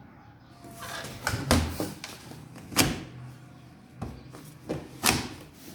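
Washing machine giving a series of sharp, irregular knocks and clunks, about six in all, with quieter stretches between them.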